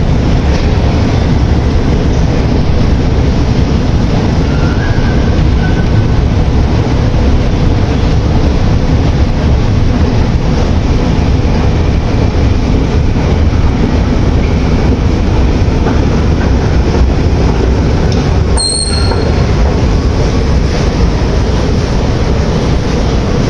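Moscow metro train running with a loud, steady rumble and rail noise, and a faint short squeal about five seconds in. A brief high-pitched tone sounds about three quarters of the way through.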